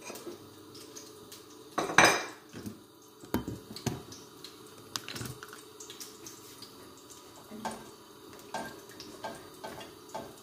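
Kitchen clatter: scattered clinks and knocks of utensils, dishes and a cooking pot, the loudest about two seconds in, over a faint steady hum.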